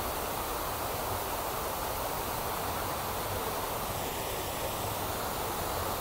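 Steady rushing of a large wall waterfall: water sheeting down the walls of a square memorial reflecting pool and falling into its central void.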